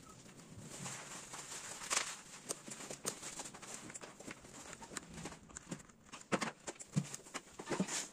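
Irregular light clicks and taps from handling an opened iPad's frame, parts and small tools on a work mat.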